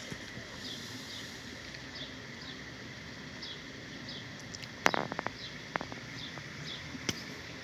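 A bird outside calling over and over, each call a short, falling high chirp, about two a second, over a steady hiss. A quick cluster of sharp clicks comes about five seconds in, and a single click near the end.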